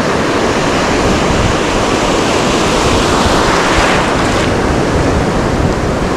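Ocean surf washing against the rocky shoreline, a wave surging louder about three seconds in and then falling back, with wind rumbling on the microphone.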